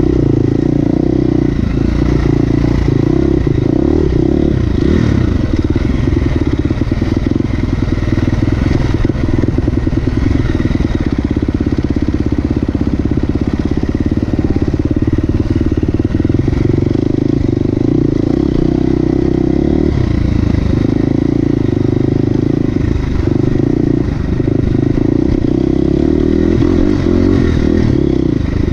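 Motorcycle engine running steadily, one unbroken drone without big revs, with continual rattling and clatter over it.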